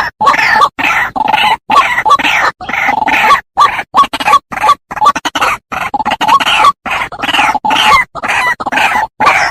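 White-breasted waterhen (ruak-ruak) calls played as a bird-lure recording. The calls repeat about two a second, each falling in pitch and broken off by short, sudden gaps.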